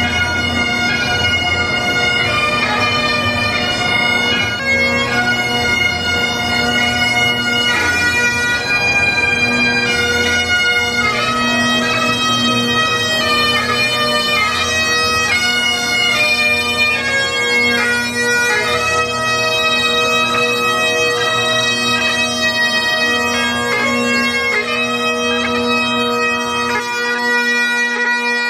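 Bagpipes playing a tune, the chanter's melody moving from note to note over a continuous steady drone.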